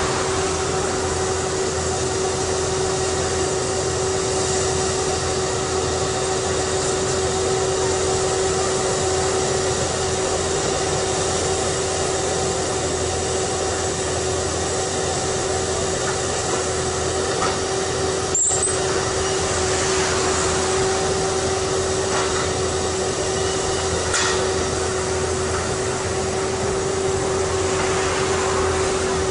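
Vermeer 16-ton horizontal directional drilling rig running steadily, a constant machine drone with a steady whine on top. One sharp click about 18 seconds in.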